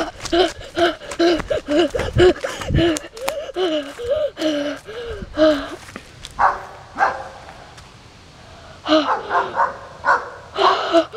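A boy panting hard in quick voiced breaths, about two or three a second, out of breath from sprinting. A few thumps of running steps come in the first three seconds, and the panting stops briefly about two-thirds of the way through, then starts again.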